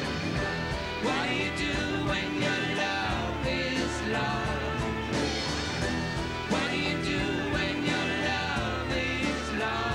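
Live band music, an instrumental passage with no vocal line: strummed acoustic guitar and drums, with the rest of the band playing along.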